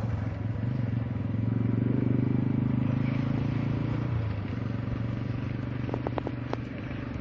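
An engine running at a steady speed, easing slightly about four seconds in, with a few light clicks near the end.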